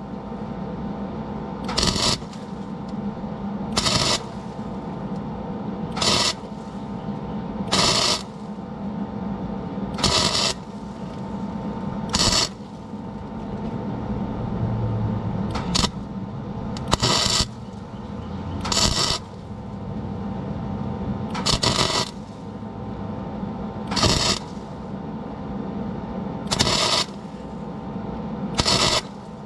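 Repeated short scraping strokes, about one every two seconds, over a steady low hum.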